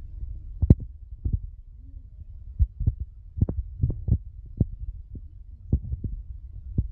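Irregular soft thumps and knocks, about a dozen, over a low rumble, as food is handled onto a plate; the loudest knock comes about a second in.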